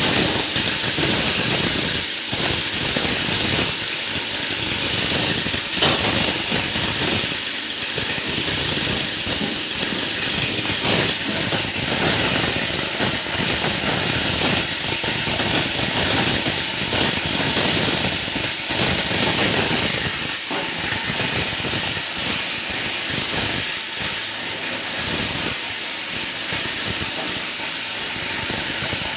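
A 20-inch heavy-duty plastic scrap grinder running, a steady loud noisy din with many short irregular cracks.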